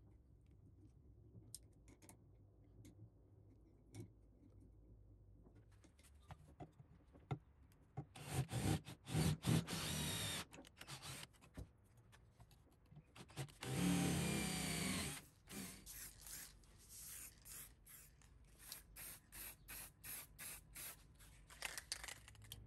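Paint being sprayed in bursts: a few spray bursts about eight to ten seconds in, one longer hiss around fourteen seconds, then a quick run of short sprays. Before that, faint clicks of an Allen key on screws.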